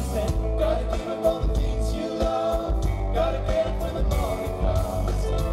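Live band performing a song: a man sings the lead melody over electric guitar, bass and drums with steady cymbal strokes, loud and full through the concert sound system.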